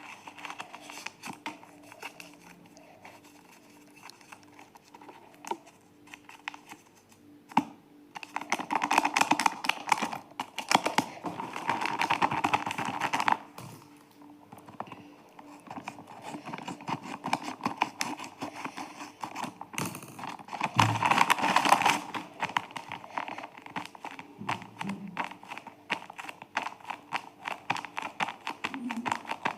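Paper and packaging of a handmade blind bag being handled and opened: quick light clicks and taps throughout, with two louder spells of crinkling and rustling, one about a third of the way in and one around two-thirds.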